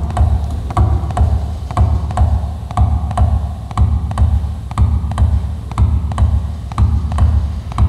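Milking machine running: its pulsators click sharply about once a second with fainter ticks between, over a low pulsing in the same beat.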